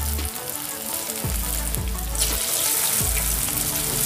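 Moong dal pakodas deep-frying in well-heated oil in a kadhai: a steady bubbling sizzle, with background music underneath.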